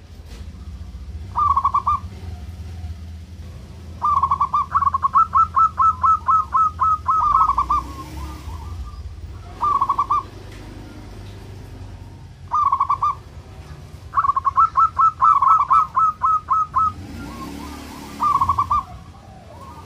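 Zebra dove (perkutut) cooing loudly: repeated bursts of rapid staccato notes, two of which run on into a longer string of quick notes lasting about three seconds. A steady low hum lies underneath.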